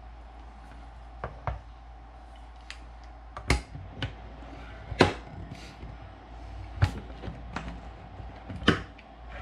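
Irregular sharp metal clicks and clacks from a handheld manual can opener being clamped onto a can's rim and cranked, the loudest about five seconds in.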